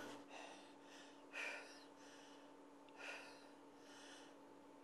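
Faint, quick breathing: a breath about every second and a half, over a low steady hum. It is the rapid breathing of a breathless patient.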